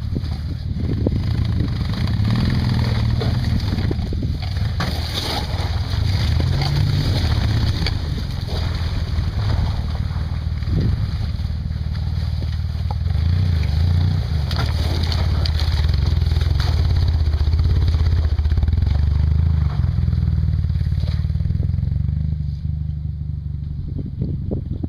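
Off-road buggy engines running at low revs, their pitch rising and falling as the buggies crawl over a rocky track.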